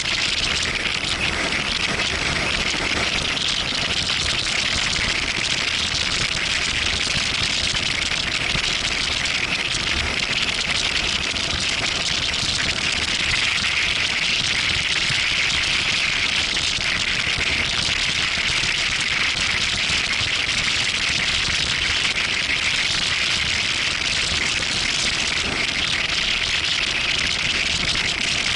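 Steady rushing wind noise on the microphone of a camera on a motorcycle moving at highway speed, an even hiss that covers any engine sound.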